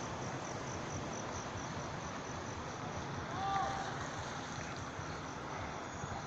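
Outdoor night ambience: a steady background hiss with an insect chirping in a fast, even pulse over the first couple of seconds. About three and a half seconds in comes a short tone that rises and falls.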